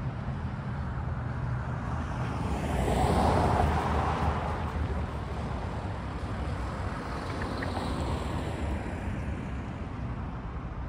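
Road traffic: cars passing, tyre and road noise swelling and fading over a low rumble. The louder pass peaks about three to four seconds in, and a fainter one follows near eight seconds.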